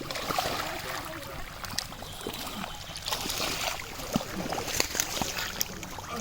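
Pond water sloshing and splashing, with scattered sharp small splashes over a steady hiss of moving water.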